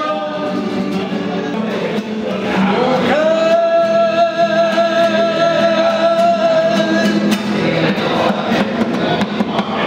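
A man singing live to acoustic guitar, in a bar. About three seconds in, his voice slides up into one long held note that lasts about four seconds, with the guitar strumming underneath.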